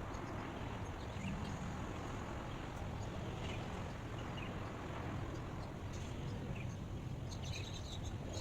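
Steady outdoor ambient noise, a low even rush, with faint bird chirps here and there, a few more near the end.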